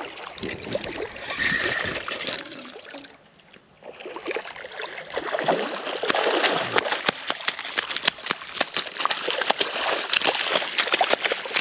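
Hooked bonnethead shark thrashing and splashing in shallow water at the shoreline as it is reeled in. There is a short lull about three seconds in, then dense splashing for the rest.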